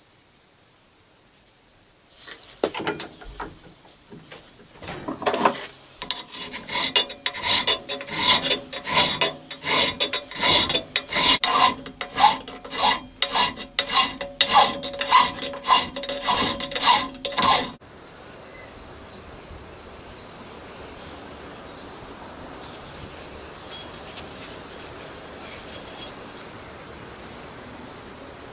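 Hand file rasping across the steel of a broken hatchet head clamped in a vise, in a steady run of back-and-forth strokes, roughly two a second. It stops abruptly about two-thirds of the way through, giving way to a faint steady outdoor background with a few small chirps.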